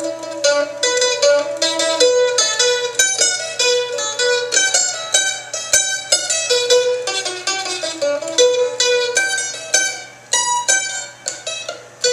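Solo mandolin playing a fast picked melody, with some notes held longer between quick runs.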